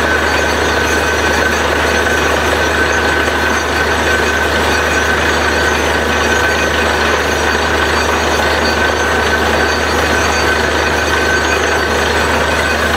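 Truck-mounted borewell drilling rig running steadily while drilling is under way. It makes a loud, constant machine din, with a steady high whine over a low drone.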